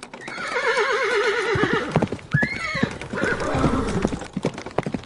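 Horse neighing: a long wavering whinny for the first couple of seconds, then a shorter call about two and a half seconds in. Hoofbeats clip-clop from about a second and a half in onward.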